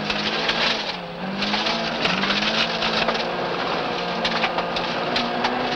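Front-wheel-drive rally car's engine heard from inside the cabin under hard throttle, its revs dipping and picking up again twice in the first two seconds, then running steady and climbing slightly. Throughout there is a rush of gravel noise with scattered clicks of stones.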